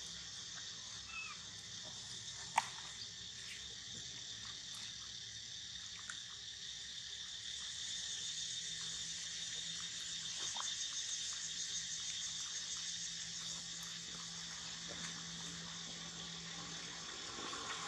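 Steady high-pitched chorus of calling insects, with a single sharp click about two and a half seconds in.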